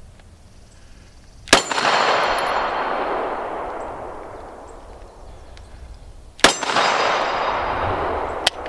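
Two pistol shots from a PSA Dagger 9mm, about five seconds apart, fired with a light, roughly 1,000 ft/s target load. Each shot's report trails off over two seconds or more. A short sharp click comes near the end.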